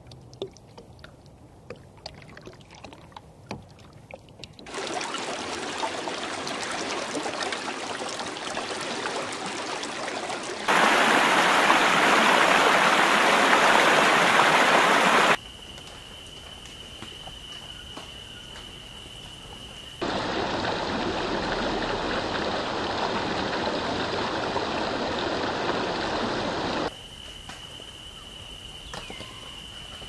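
Edited nature ambience: stretches of steady rushing noise like running water that start and stop abruptly, loudest for a few seconds near the middle. Between them come quieter stretches holding a steady high-pitched whine.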